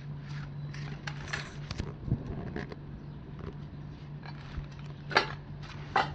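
Scattered light clicks and clinks over a steady low hum, with two sharper, louder clicks about five and six seconds in.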